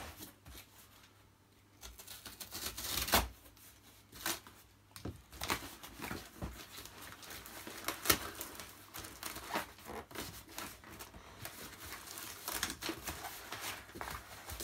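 Cardboard box and brown packing paper being handled: irregular crinkling, rustling and crackling as flaps are folded and pressed down, with sharper cracks about three and eight seconds in.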